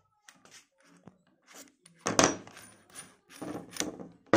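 Metal parts clinking and clattering against each other and a wooden bench as a drill chuck, hex keys and a small screw are handled. There are a few light ticks at first, then louder rattling clatters about two seconds in, and sharp knocks near the end.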